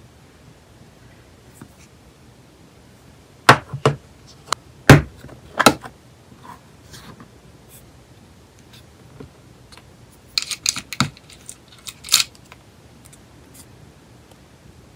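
Sharp plastic clicks and taps from a clear plastic nail-tip case and the clear nail tips being handled. There is a cluster about three to six seconds in and another about ten to twelve seconds in.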